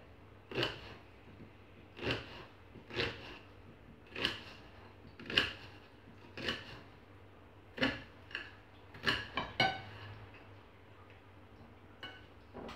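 Kitchen knife cutting through a vegetable and tapping down on a ceramic plate: about a dozen sharp taps, roughly one a second, some coming in quicker pairs.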